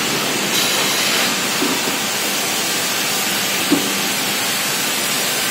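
Steady hissing machinery noise from a six-head boring machine on a woodworking factory floor, brighter for under a second about half a second in.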